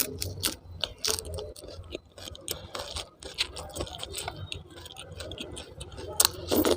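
Close-miked eating: irregular, quick clicks and smacks of a mouth chewing food.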